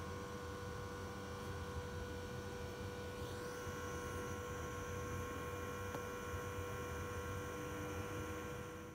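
Multi-jet gas ring burner running steadily in a clay pit furnace while it heats a steel blade: a steady hum with a low rumble and hiss. About a third of the way in, a high tone rises and then holds.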